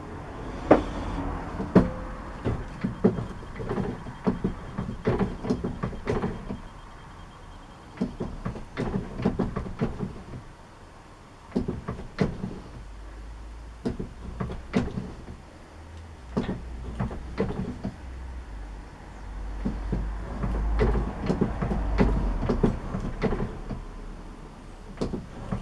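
Keyway being hand-broached on a metal lathe: a cutter in the steel sleeve's bore is fed through in repeated passes, giving irregular clicks, knocks and scraping of metal on metal, with a low rumble in two stretches in the middle and later on.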